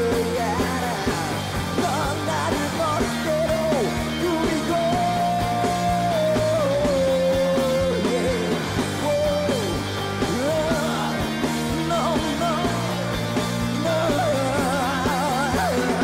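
A rock band playing live: a singer over electric guitars and drums, holding a long note about five seconds in and singing with vibrato near the end.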